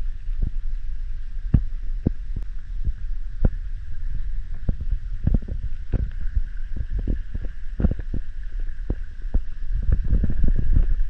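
Footsteps and handling noise of a camera carried on foot: dull low thuds about twice a second over a low rumble, with a faint steady hiss behind.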